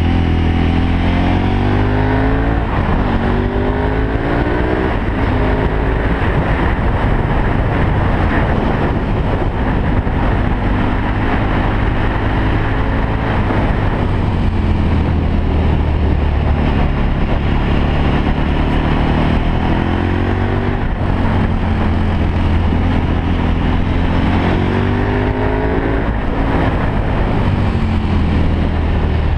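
Motorcycle engine heard from on board while riding a twisty road: it climbs in pitch as the bike accelerates out of the bends, several times over, and holds steadier between them, with a constant rush of wind on the microphone.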